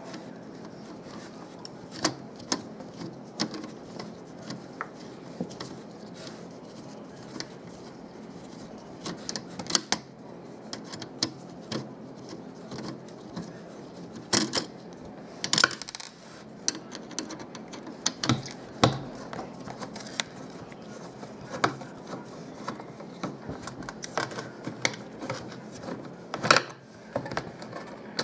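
Screwdriver working at a car stereo's sheet-steel chassis: irregular metal clicks, taps and scrapes, with a few sharper clacks, over a steady hiss.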